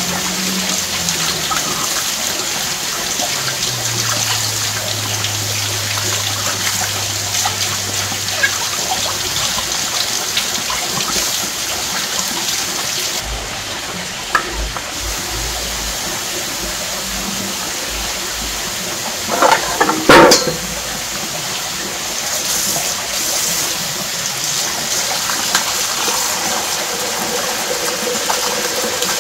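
Water running steadily from a kitchen tap into a sink, with a brief louder clatter about twenty seconds in.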